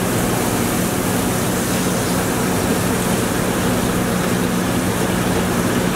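Steady rushing noise of a commercial kitchen exhaust hood and gas range running, with a constant low hum.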